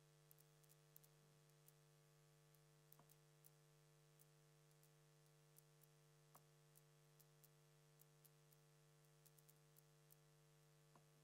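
Near silence: a faint steady electrical hum with a few very faint ticks.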